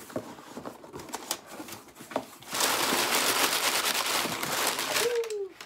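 Rustling and crinkling as an already-opened cardboard shipping box of books is handled and its packing pulled aside: scattered light clicks and taps at first, then dense steady rustling from about halfway through for a couple of seconds.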